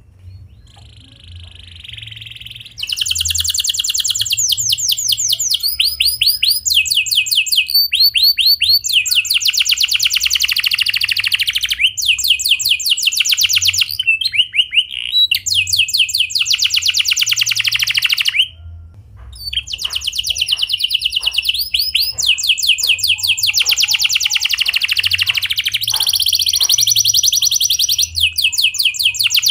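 Domestic canary singing clear, fast rolling trills, one trilled phrase after another at shifting pitches. The song starts in earnest about three seconds in and breaks off briefly about two-thirds of the way through.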